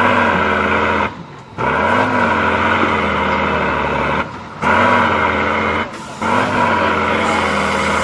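Tatra 6x6 trial truck's diesel engine revving hard under heavy load in repeated surges, its pitch rising and falling, with brief dips between surges, about four in all.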